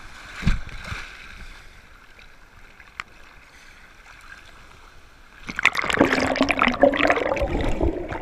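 Surf washing over a camera at water level. There is a thump about half a second in and a quiet wash of water after it, then from about five and a half seconds a loud churning gurgle as a wave covers the camera and it goes underwater.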